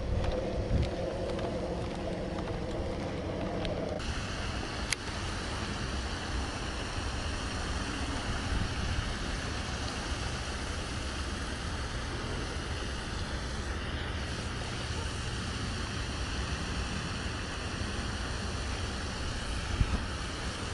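Wind rumbling on the microphone, with a steady high hiss over it; the sound changes abruptly about four seconds in.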